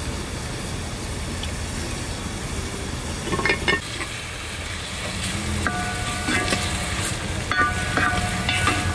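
Chopped onions sizzling in hot oil and ghee in a metal pot, stirred with a wooden spatula, with a short scrape about three and a half seconds in.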